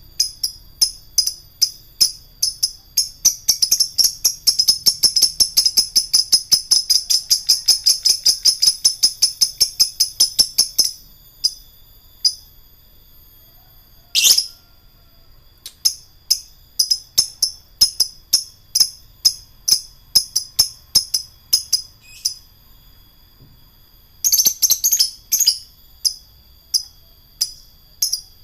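Lovebird calling: sharp high ticks a few per second ("ngetik") that break into a long, rapid chattering run ("ngekek panjang") lasting about seven seconds. The ticks then go sparse again, with one short falling squeal about halfway through and another brief chatter near the end.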